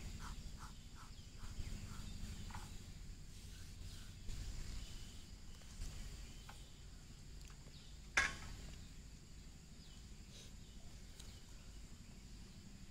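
Quiet outdoor ambience in an oil palm plantation: a low steady rumble on the microphone, a quick run of faint chirps in the first second or so, a few small clicks, and one sharp crack about eight seconds in.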